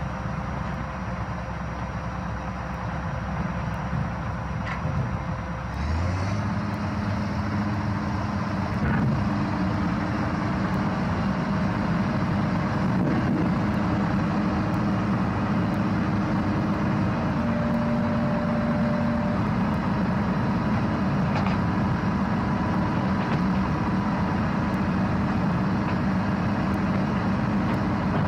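Heavy diesel engine running steadily, revving up about six seconds in and holding at the higher speed.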